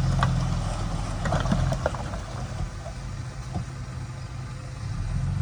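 Bulldozer's diesel engine running, easing off in the middle and building again near the end.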